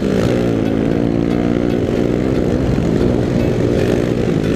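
Dirt bike engine running at riding speed, its revs dropping off and picking up again a couple of times with the throttle.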